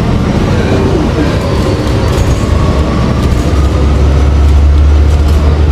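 Inside a moving city bus: steady engine and road rumble, growing louder about halfway through.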